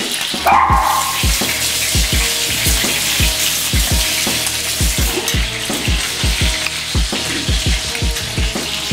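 Chicken wings searing in hot oil in a pan, a steady sizzle with frequent irregular low pops. The wings are being browned on each side before going into the oven.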